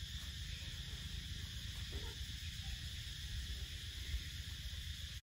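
Steady chirring of insects over a low rumble, with a brief knock about four seconds in; the sound cuts off suddenly near the end.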